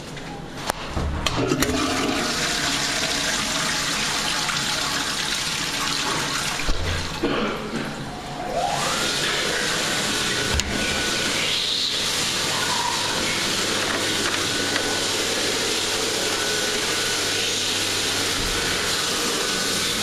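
Allia toilet flushed with its Geberit push button: clicks about a second in, then a loud steady rush of flush water. About eight seconds in, the sound dips and a rising whistle levels off into a steady tone under the running water, typical of the cistern refilling.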